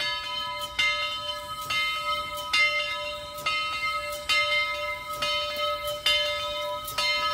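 Locomotive bell ringing steadily, about one strike every second, each strike ringing on into the next, as it does when a train is about to move.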